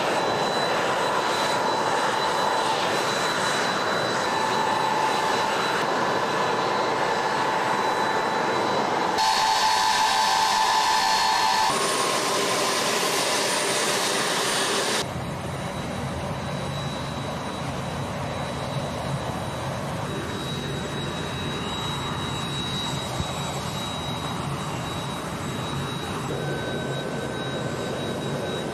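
Ilyushin Il-76 transport's four turbofan engines running on the ground: a steady jet rush with high-pitched turbine whines. The sound changes abruptly a few times and is somewhat quieter from about halfway.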